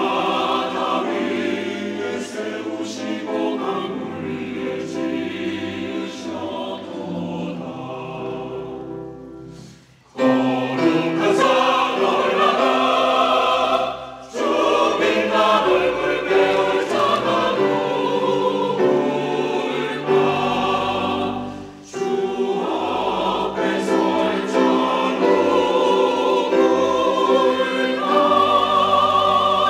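Mixed church choir singing a sacred anthem in full chords. About ten seconds in, a phrase fades away almost to silence, then the choir comes back in loudly. Short breaks between phrases follow later.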